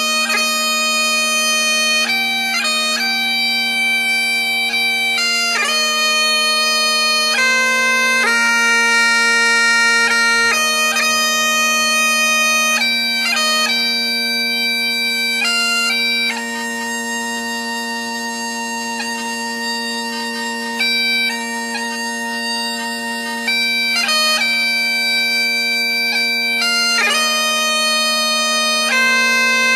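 Bagpipes playing a tune: a steady drone underneath, with the chanter's melody notes changing every second or so above it.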